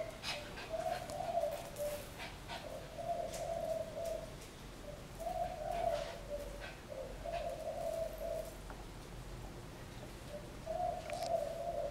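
A dove cooing in the background: a low call about a second long, repeated every second or two, with light clinks of a metal chain now and then.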